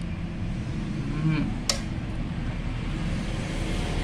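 A steady low hum in the background, with one sharp clink of dishware about a second and a half in as soup is ladled and bowls are handled.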